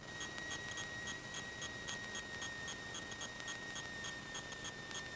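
Faint cockpit audio in a taxiing Piper Cherokee: a steady high whine with light, regular ticking at about four a second over a low hum, typical of electrical noise on an aircraft intercom recording.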